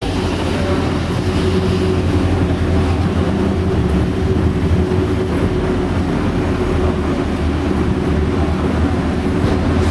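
Steady low mechanical rumble with a droning hum, unchanging in level throughout.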